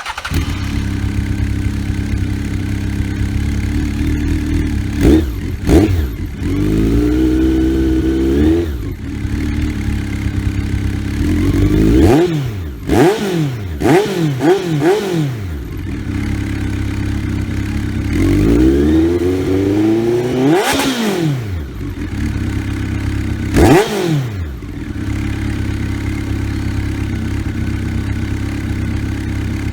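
Honda CB1300's inline-four engine through a Speed Cobra Pro aftermarket exhaust, really loud, idling steadily between repeated throttle blips. The revs come as single quick blips, a couple of held revs that climb and drop back, and a fast run of four blips in a row.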